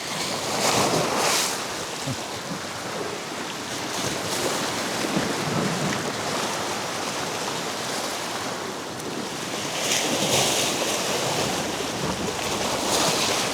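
Sea waves washing against the jetty rocks, with wind buffeting the microphone; the wash swells up a few times, about a second in, around ten seconds in and near the end.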